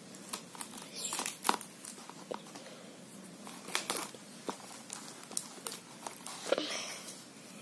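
Hands working with corrugated cardboard and clear adhesive tape: scattered crinkles, rustles and light taps as the tape is pressed and smoothed onto the cardboard, a little louder about a second in, around four seconds and near the end.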